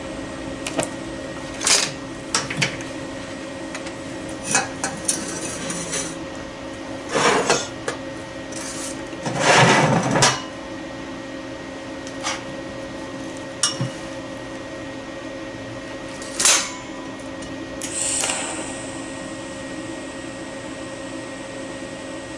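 Scattered metal clanks and knocks as a stainless steel exhaust pipe and tools are handled on a steel welding table, over a steady machine hum. The loudest is a rough, noisy burst lasting about a second, about ten seconds in.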